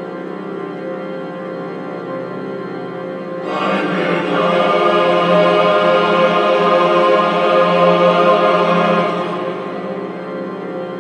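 Slow, sustained choral music over a held low drone. A fuller, louder layer of voices comes in about three and a half seconds in and eases back about nine seconds in.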